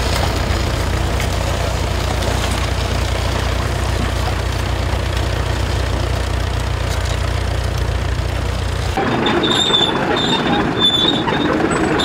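Tractor engine running steadily as it pulls a plough through the soil. About nine seconds in this gives way to a crawler tractor moving, its running gear clattering with a repeated high squeak.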